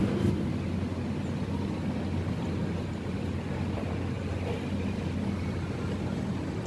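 A steady low mechanical hum over even background noise.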